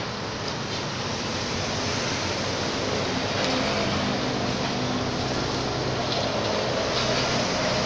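Road traffic: a steady rush of passing vehicle noise with a low engine hum, swelling gradually toward the middle and staying up.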